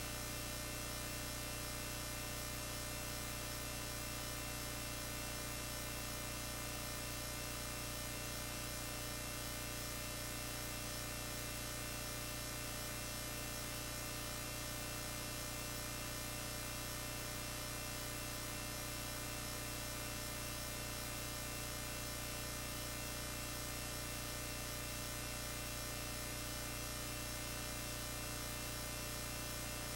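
Steady electrical hum and buzz that does not change at all, with no soundtrack over it.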